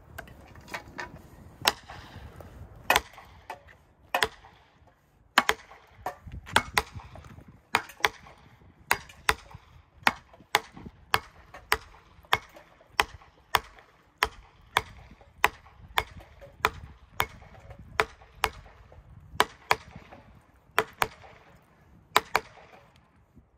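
Felling wedges being hammered into the cut of a fir that leans back. It is a steady run of sharp strikes, roughly one and a half a second, as the wedges are driven home to lift the tree over.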